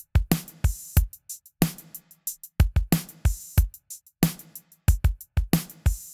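Drum kit recording playing in a groove of kick drum thumps and bright cymbal hits, run through a Chandler-style compressor plugin set to its limiter mode, so the hits are squeezed by gain reduction.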